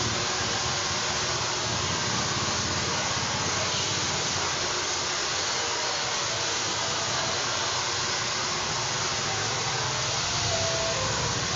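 Handheld hair dryer running steadily while blow-drying hair: an even, unbroken rush of air noise.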